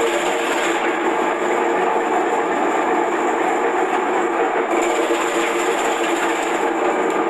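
Electric belt-driven vegetable slicing machine running steadily, its slicer blade cutting potatoes into slices as they are pushed in by hand. It makes a continuous mechanical whir with a few steady hum tones.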